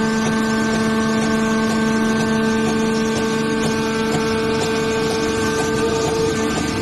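Hydraulic baler running: its motor and hydraulic pump give a steady hum with a whine.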